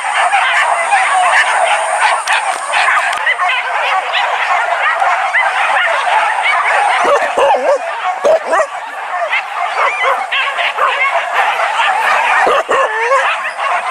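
A pack of hunting dogs yelping and barking together, many high voices overlapping without a break.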